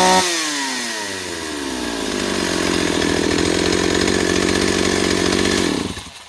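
Stihl 028 two-stroke chainsaw engine running at high revs, dropping over about two seconds to a steady idle, then shut off near the end.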